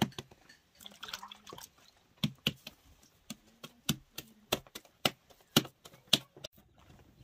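Bread dough slapped back and forth between bare palms as it is stretched into a flatbread round: a string of sharp, irregular slaps, roughly two a second, with a short pause a little after a second in.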